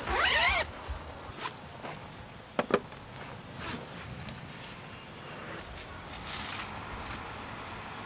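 Tent door zipper pulled in one quick, loud zip right at the start. Two sharp clicks come a little later, and past halfway a steady high whir sets in as a DeWalt cordless jobsite fan starts running.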